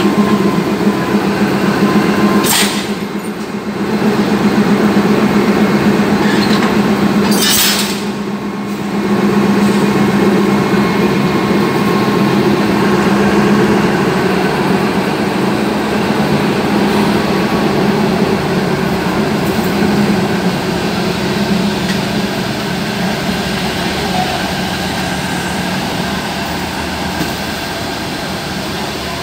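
Alsthom diesel-electric locomotive running close by, a steady, loud engine drone that slowly fades over the last several seconds. Two short hisses come about two and a half seconds in and again about five seconds later.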